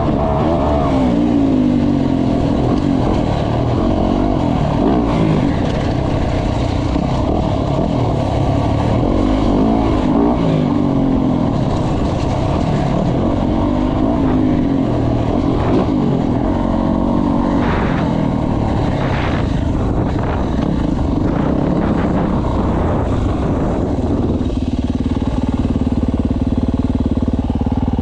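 Dirt bike engine being ridden, its pitch rising and falling repeatedly as the throttle is worked, settling to a steadier note near the end.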